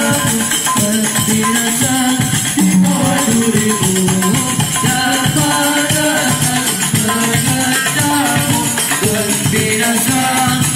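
Sholawat music played live through a large PA sound system: a moving melody over a steady low beat with jingling tambourine-like percussion.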